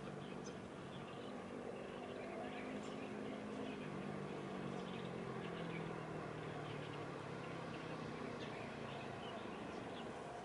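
A steady low engine drone whose pitch drifts slowly down and up, with faint bird chirps over it.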